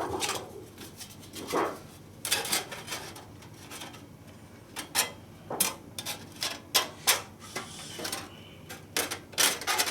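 Metal parts of a folding fire pit being handled and fitted together: irregular clinks, clicks and short scraping rubs.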